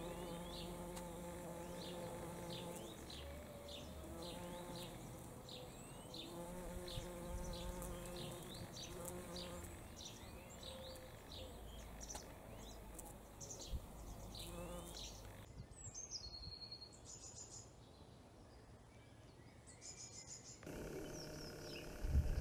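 Bumblebee buzzing in flight, a low hum that comes and goes as it moves about, with little to no hum over the last several seconds.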